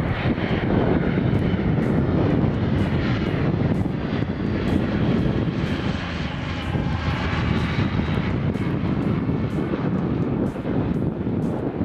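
De Havilland Canada DHC-6 Twin Otter on floats flying low overhead, its two turboprop engines and propellers running steadily, with the tone shifting slightly as it passes, about six to eight seconds in.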